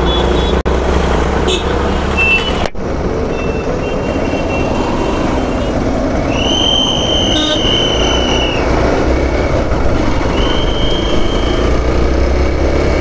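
Hero Xpulse 200's single-cylinder engine running as the motorcycle pulls away and picks up speed, with road noise. A vehicle horn sounds twice: a long honk about six seconds in and a shorter one near the end.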